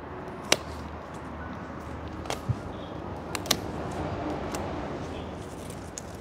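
Hand tools clicking and knocking as roots are worked onto a rock in a stone bonsai pot: about half a dozen sharp, irregular clicks, the loudest about half a second in, over a steady low hum.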